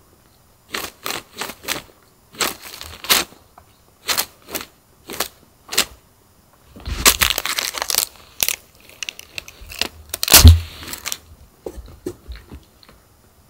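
Quick scratching and crinkling strokes in irregular runs, with a dense stretch about seven seconds in and a heavy thump about ten and a half seconds in.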